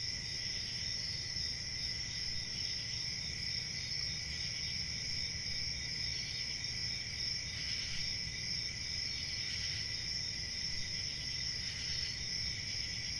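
Steady chorus of crickets chirping, a night-time outdoor ambience, with a low rumble underneath.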